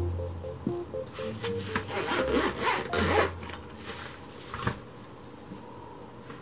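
Zipper on a fabric insulated lunch bag being pulled closed: a rasping run of about a second, starting two seconds in, with handling rustle and a single knock after it. Light background music plays under the first half.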